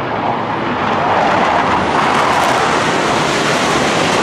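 Jet engine noise from a low formation of T-50B Golden Eagle jets flying past, a loud steady rushing sound that swells about a second in and then holds.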